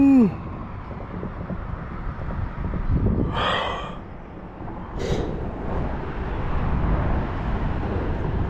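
Steady low outdoor rumble of flowing river water and traffic on a road bridge, with a short breathy rush about three seconds in and a fainter one about five seconds in.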